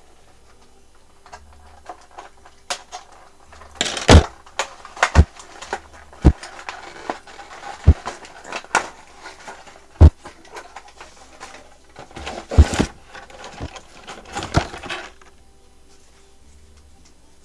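Cardboard and plastic toy packaging rustling and crinkling, with sharp clicks and knocks, as a doll is worked free of its box. It is loudest in a few bursts around the middle and near the end.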